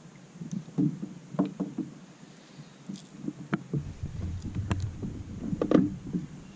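Handling sounds in a plastic fishing kayak: scattered sharp clicks and knocks and short scuffs, with a low rumble joining in about four seconds in.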